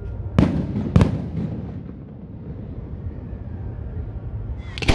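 Aerial firework shells bursting: two sharp bangs about half a second apart, then a low rolling rumble that fades, and another bang right at the end.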